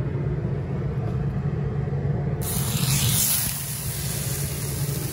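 Rolled skirt-steak pinwheels going into hot oil in a cast-iron skillet: a sudden sizzle starts about two and a half seconds in as the meat hits the pan, over a steady low rumble.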